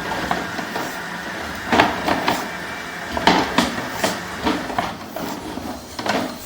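Sewer inspection camera's push cable being fed into a drain line, clattering and knocking irregularly over a steady mechanical hum.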